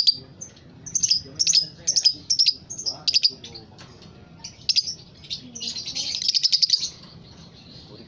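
Caged lovebird chattering: short bursts of rapid, high twittering notes, then a longer fast run of notes about six seconds in.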